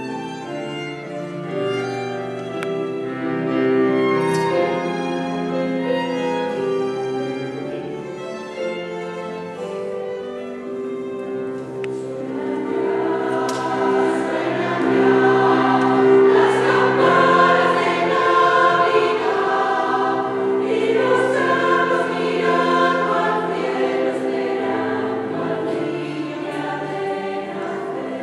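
Women's choir singing with violin and piano accompaniment; the singing grows fuller and louder about halfway through.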